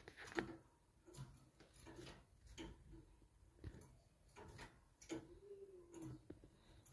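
Near silence: room tone with faint, scattered clicks and taps, and a brief faint low hum about five seconds in.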